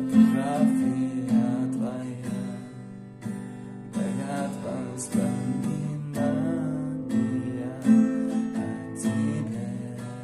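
Acoustic guitar strumming slow chords, about one a second, in the instrumental ending of a slow ballad.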